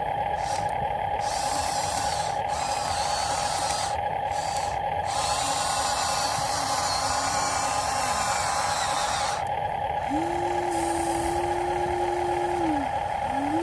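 Radio-controlled model construction machines at work: a steady high motor whine throughout, with stretches of hiss in the first part and a second motor spinning up, holding and winding down near the end.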